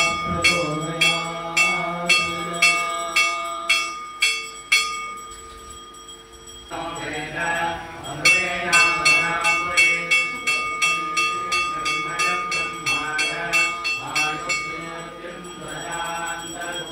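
A temple bell rung in a steady rhythm, two or three strokes a second, its tone ringing on between strokes. The ringing pauses for about three seconds some five seconds in, starts again, and fades out near the end, over voices chanting.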